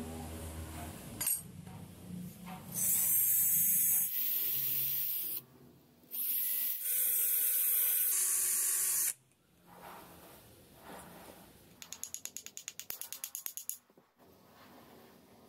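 Electric drill running in two bursts, a short one and then one of about three seconds, with its chuck working at the brass ferrule of a wooden knife handle. Near the end comes a rapid run of clicks, about a dozen a second.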